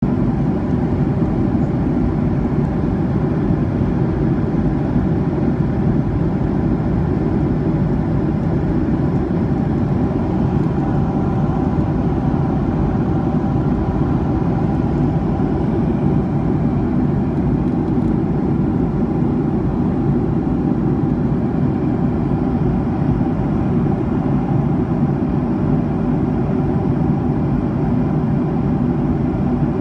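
Steady cabin drone of a jet airliner in flight: engine and airflow noise heard from inside the cabin, mostly low and even, with a few faint steady tones above it.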